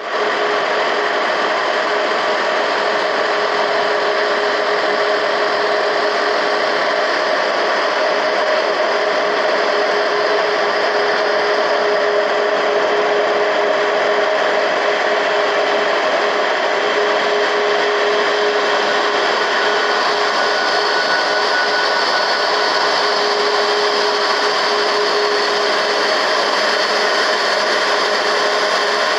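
Boeing 737 jet engines running at idle while the airliner taxis in, a steady rushing noise with a high whine held through it.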